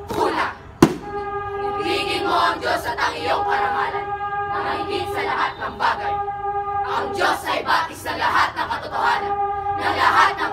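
Children's speech choir chanting and calling out in unison over a steady held sung tone that drops out and comes back a few times. A single sharp hit sounds about a second in.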